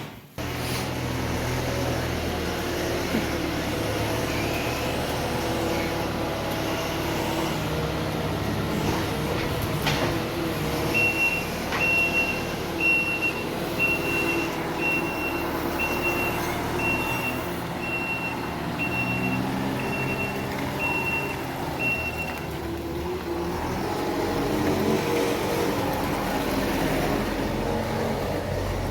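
Engine of a farm vehicle running steadily, with its reversing alarm beeping about once a second for roughly eleven seconds in the middle.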